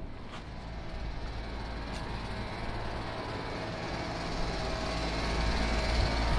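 Outdoor air-conditioner condenser units running: a steady low hum with fan noise, growing gradually louder toward the end.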